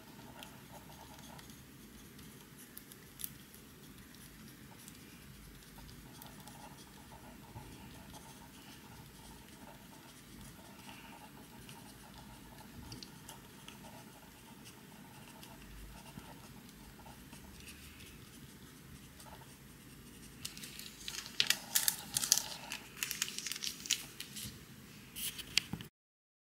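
Pencil writing on a small scrap of paper: a faint, soft scratching. Near the end, louder crinkling and rustling as the paper is handled.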